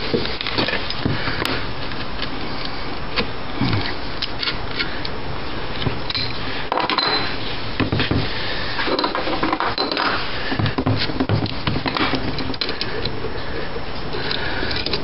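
Adjustable wrench working a screw extractor in a broken bolt in an alternator housing: irregular metal clicks, clinks and scraping as the wrench is turned and repositioned.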